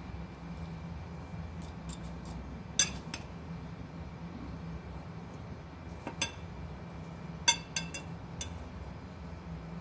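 Metal forks clinking against a glass dish and a china plate while shredded cabbage salad is served, a handful of sharp clinks with the loudest about three seconds in and again past the middle, over a steady low hum.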